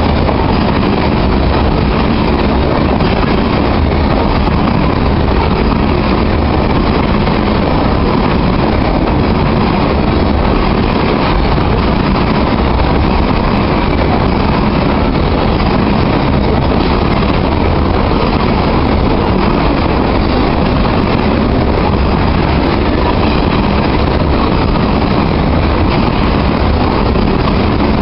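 Covered grain hopper cars of a freight train rolling past close by: a loud, steady rumble and rattle of steel wheels on rail.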